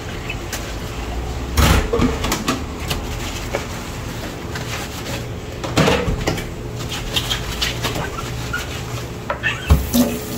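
Washing-up clatter: dishes and kitchenware knocked about and set down, with three louder bangs about two, six and nine and a half seconds in, over a steady low hum.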